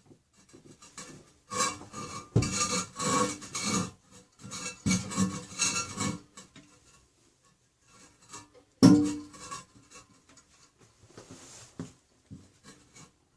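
Porcelain toilet being shifted and set back into place on the floor. Several bursts of scraping and rubbing are followed by one hard knock about nine seconds in, then faint small taps.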